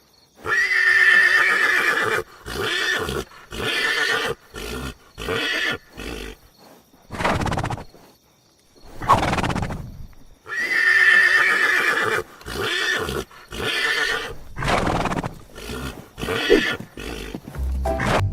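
Horse whinnying several times. Two long whinnies come about ten seconds apart, with shorter calls between them.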